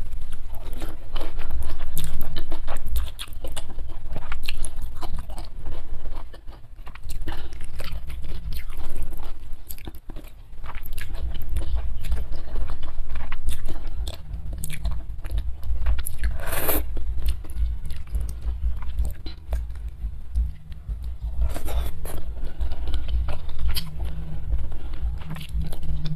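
Close-miked eating of fried instant noodles with sardines and raw chillies: wet chewing, biting and crunching with crisp mouth clicks and smacks. One louder, longer mouth noise comes about two-thirds of the way through.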